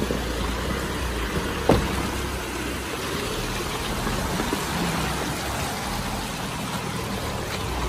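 Mahindra Bolero pickup driving slowly along a muddy hill track, its engine running steadily under a haze of road and tyre noise. There is one sharp knock about two seconds in.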